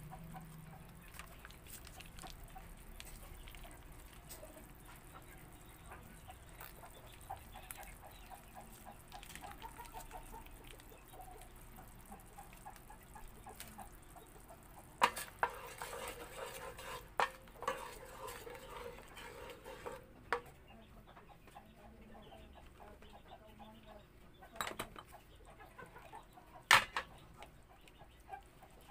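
A few sharp clinks of a utensil against a cooking pan, with chickens clucking in the background.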